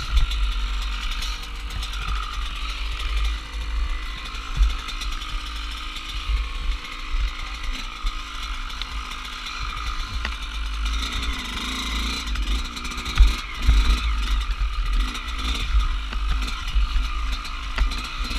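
Dirt bike engine being ridden off-road, its pitch rising and falling with the throttle, over a heavy low rumble, with a few sharp knocks from the bike hitting bumps.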